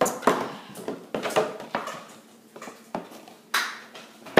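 Cardboard and plastic packaging of a trading-card collection box being handled and worked open by hand: an irregular run of clicks, taps and crinkles, with a sharper snap about three and a half seconds in.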